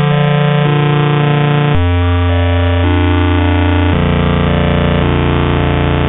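Harsh, buzzy synthesized tones from the malware's generated sound effects, shifting to a new pitch every one to two seconds, in the low-fidelity, bytebeat-style sound such malware plays.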